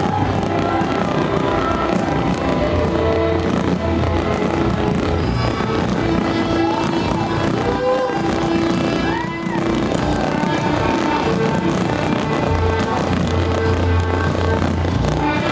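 Loud show music with fireworks going off over it: a dense run of cracks and bangs from the aerial shells throughout.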